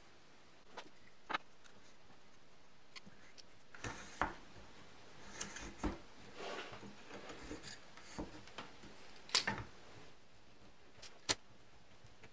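Scattered light clicks and wooden knocks from plywood discs being slid onto a steel shaft and handled as they are stacked, with bar clamps put on near the end; the sharpest knocks come about nine and eleven seconds in.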